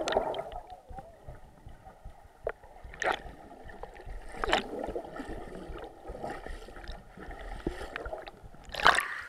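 Muffled gurgling and sloshing of water heard through a camera held under the surface of murky lake water, broken by a few short louder splashes, the loudest near the end.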